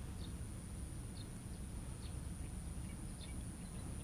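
Outdoor ambience: a few short, faint bird chirps about once a second over a low rumble, with a steady high-pitched whine.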